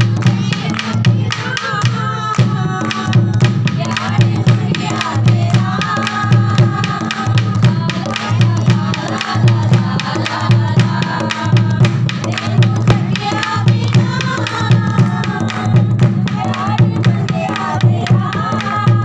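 Dholak played by hand in a steady, continuous rhythm: deep booming strokes on the bass head and sharp slaps on the treble head, with voices singing along.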